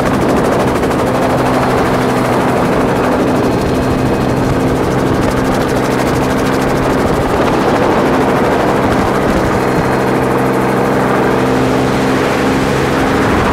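Helicopter in low flight, heard from inside the cabin: steady engine and rotor noise with a constant hum that does not change.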